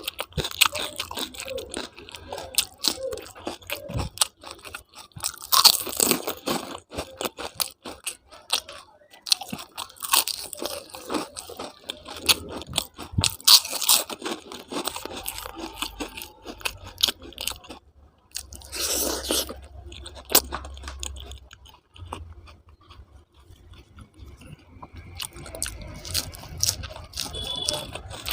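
Close-miked eating: a person crunching and chewing food, with many quick wet mouth clicks, and a louder crunchy stretch about two-thirds of the way through.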